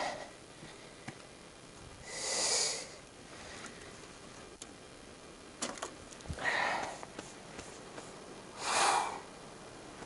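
A person sniffing three times, a few seconds apart, each a short hiss with a faint whistle in it, with a few faint clicks and a soft knock between.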